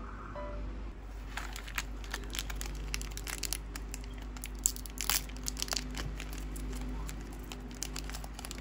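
Plastic snack wrapper crinkling and crackling as hands tear it open, a rapid run of sharp rustles, loudest about five seconds in.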